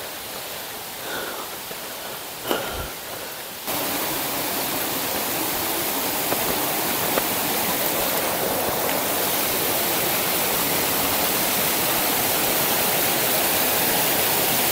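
Steady rush of flowing water that cuts in abruptly about four seconds in. Before it there is only a quieter hiss with a single click.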